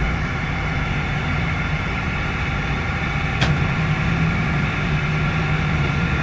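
An engine running steadily at an even speed, with a single brief click about three and a half seconds in.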